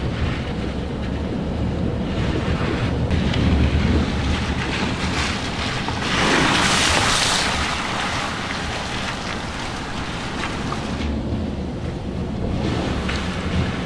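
Car driving slowly on a wet street, heard from inside: steady tyre and road noise with a low rumble. A louder rushing hiss comes about six seconds in and lasts over a second.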